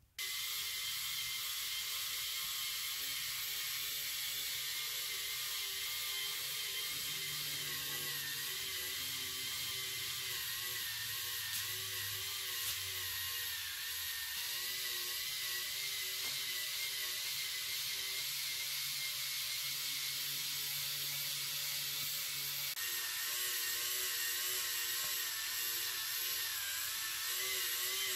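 Plastic K'nex mechanism running: a K'nex motor turning gears and a chain drive, giving a steady whir with a wavering whine and plastic rattle. It grows a little louder near the end.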